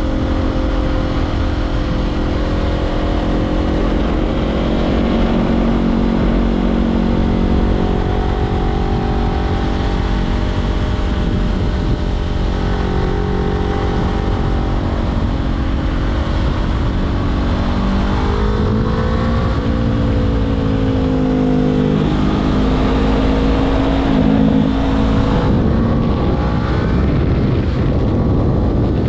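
Honda CBR500R parallel-twin engine through a LeoVince LV10 slip-on exhaust, running at steady revs while riding, with wind rush underneath. Past the middle the engine note dips and climbs again a few times as the throttle and revs change.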